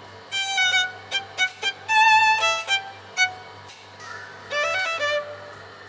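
Music: a fiddle playing a lively tune of short, quick notes.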